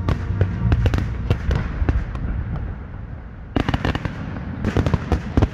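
Fireworks display going off: dense runs of rapid sharp pops, easing off mid-way and then coming back in two fresh bursts.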